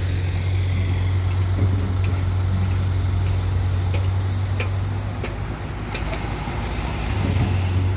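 Heavy diesel engine running steadily at low revs, with a few sharp clicks about halfway through.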